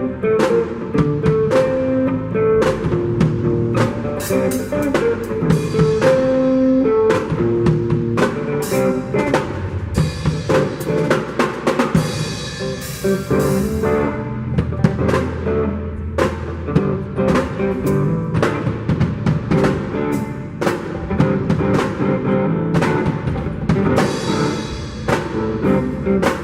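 Music led by a drum kit, with kick, snare and cymbal hits under bass and melody notes.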